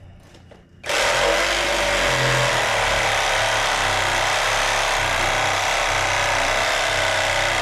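A power saw starts abruptly about a second in and runs steadily, cutting through an 8x8 oak post to finish a notch.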